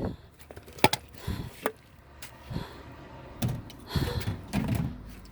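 Irregular knocks and clunks of objects being handled, with a sharp click about a second in and heavier thuds around four seconds in.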